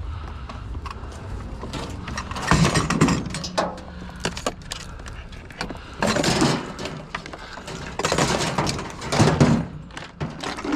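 Junk being tossed by hand into a pickup truck bed piled with scrap metal: several bursts of clattering and knocking a few seconds apart, with smaller clicks between.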